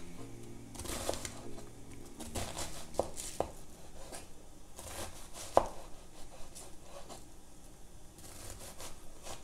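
Kitchen knife dicing vegetables on a cutting board: a few sharp, irregularly spaced knife strikes, the loudest a little past halfway.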